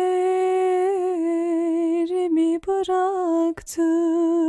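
A woman singing a Turkish song unaccompanied: long held notes with vibrato, broken twice by brief pauses for breath.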